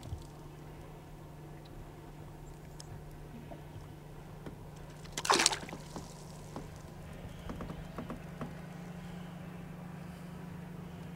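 Trout splashing once at the water's surface about five seconds in as it kicks free of the hand and is released beside the boat, with small water drips and lapping around it. A steady low hum runs underneath.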